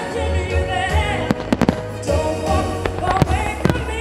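Aerial firework shells bursting in several sharp bangs over loud music with a singing voice.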